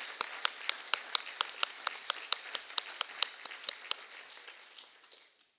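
Audience applauding a recipient, with one nearby clapper's sharp claps standing out at about four a second; the applause fades and dies away about five seconds in.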